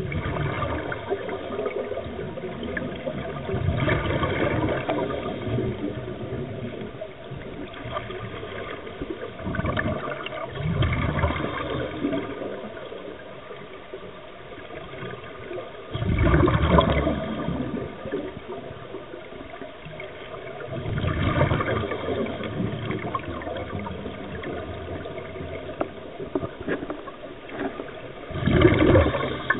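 Muffled underwater noise from a diver's breathing: a bubbly rush of exhaled air about every six seconds, five times, over a steady low hiss.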